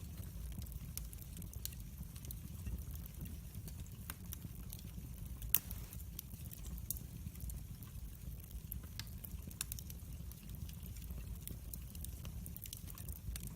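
Log fire burning in a fireplace: a steady low rumble under scattered sharp crackles, with one louder pop about five and a half seconds in.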